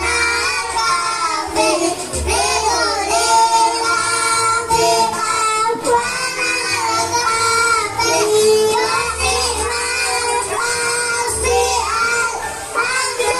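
A child singing a long, ornamented melody with wavering held notes and glides, over instrumental accompaniment with deep bass notes.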